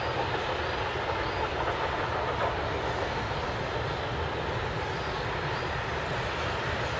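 Steam locomotive working a train in the distance, heard as a steady noise with no distinct exhaust beats.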